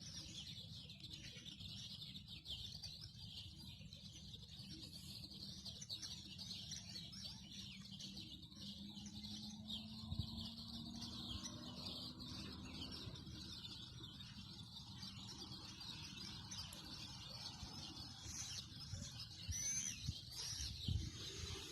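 Many small birds chirping and twittering together over a low, steady outdoor rumble, with a few low knocks near the end.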